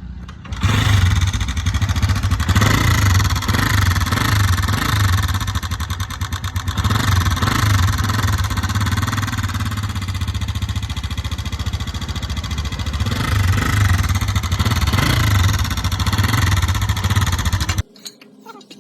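125cc motorcycle engine running, revved up and down several times, then cutting off suddenly near the end.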